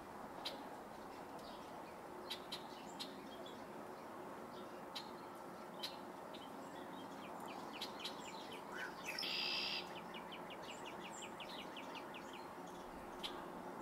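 Backyard birds calling: scattered short, sharp chirps, a louder buzzy call about two-thirds of the way in, then a quick run of evenly spaced chips, over a steady low background hum.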